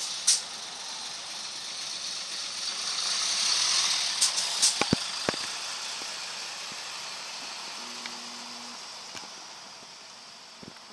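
Interior of a city bus: a hiss swells over about four seconds and then fades, with sharp rattling clicks around the peak. A short low buzzer tone sounds about eight seconds in.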